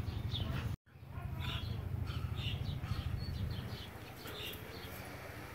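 Two dogs play-wrestling on grass, with birds chirping in short, high calls over a steady low rumble. The sound cuts out completely for an instant about a second in.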